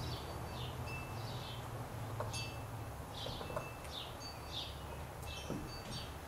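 Small birds chirping again and again in short, falling high notes, some with brief held whistles, over a low steady hum. There are a couple of faint clicks.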